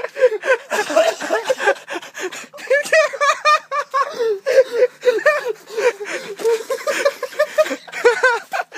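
A person laughing hard in short, high-pitched repeated bursts, with gasping breaths between them.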